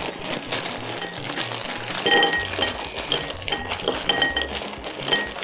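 Pre-cut French fries poured from a plastic bag into a ceramic plate: many quick clinks and clatters as the hard pieces land on the plate, with the bag crinkling.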